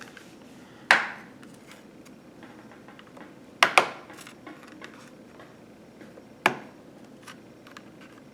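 Plastic retaining clips of an ASUS TUF laptop's bottom cover snapping loose as the panel is pried off: a sharp pop about a second in, a quick double pop near the middle and another about six and a half seconds in, with small ticks between.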